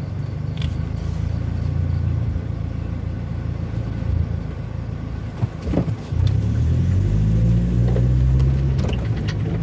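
Car engine running under load on a steep climb. About six seconds in there is a brief knock, and then the engine note steps up, gets louder and rises slowly as it is given more throttle.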